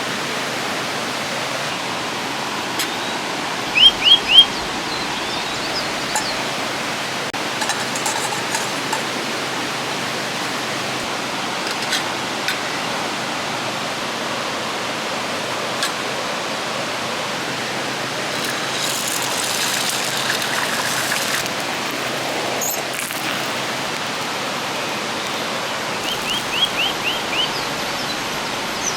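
River water rushing steadily. A bird cuts in twice with a quick run of short, rising chirps, three notes about four seconds in and five or six near the end.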